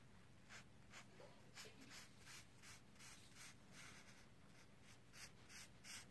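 Highlighter's felt tip scratching on paper in quick back-and-forth colouring strokes, about three a second, faint.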